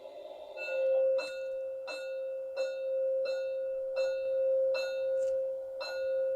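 Bell sound from the sound decoder of an LGB garden-railway steam locomotive model, played through its small built-in loudspeaker: a bell struck over and over, about every two-thirds of a second, ringing on between strikes.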